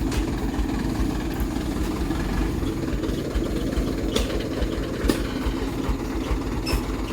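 A heavy truck's diesel engine running steadily at low revs, with a few light clicks about four and five seconds in.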